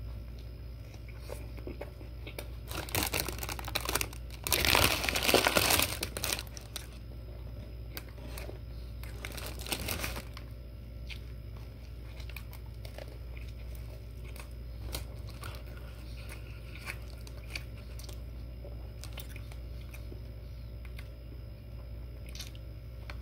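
Paper takeout bag crinkling in loud crackly bursts a few seconds in and again around ten seconds. Between and after them come soft scattered clicks of chewing on a breakfast sandwich.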